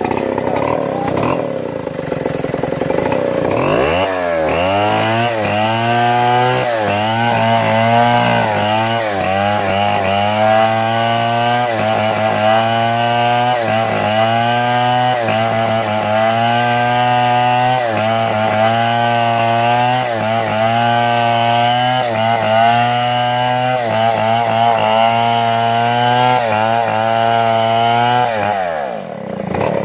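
Chainsaw revving up about four seconds in and cutting through wood under load. Its pitch dips about once a second as the chain bites, then it drops off near the end.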